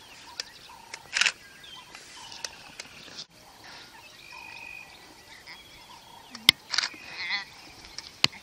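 Outdoor grassland ambience with short animal and bird calls: a sharp cry about a second in, repeated brief chirps, a held whistle in the middle and a warbling call later. Two sharp clicks come late on.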